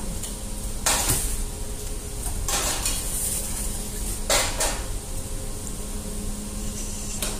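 Metal tongs clanking against a stainless-steel baking tray and plate as slices of garlic bread are lifted off, about four separate sharp clinks over a steady low hum.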